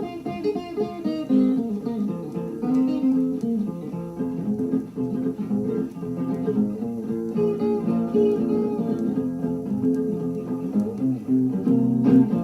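Blues guitar playing solo, a steady run of picked notes and strums.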